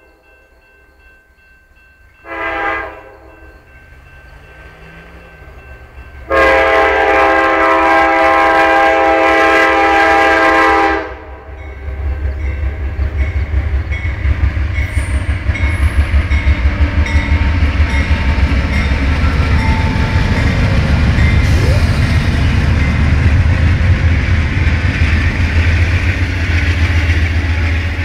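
Nathan K5 five-chime air horn on a GE P42 locomotive sounding a short blast and then a long one of about five seconds. From about twelve seconds in, two GE P42 diesel locomotives and a string of Superliner cars pass close by, with a loud, low, steady rumble and rhythmic wheel clatter.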